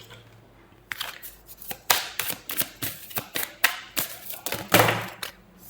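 Tarot cards being handled on a table: a run of irregular clicks and soft slaps, the loudest about five seconds in.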